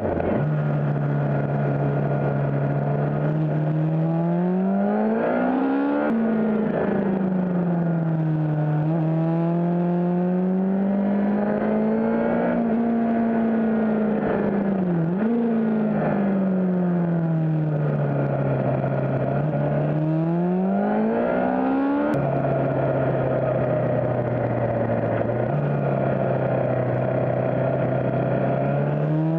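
Suzuki GSX-R600's inline-four engine heard from on board while riding, its revs rising and falling through the bends. The pitch drops suddenly about six and twenty-two seconds in, as at upshifts, and jumps back up briefly around fifteen seconds in.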